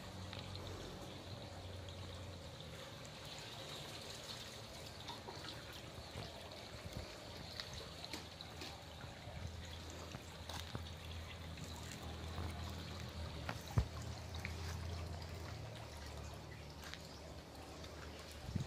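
Water trickling and splashing steadily from an inlet pipe into a concrete fish tank, with small scattered drips and splashes.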